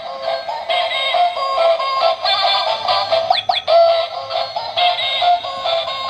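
Battery-operated toy cat playing a tinny electronic tune from its sound chip, a quick run of beeping notes, with a couple of fast pitch sweeps about three and a half seconds in.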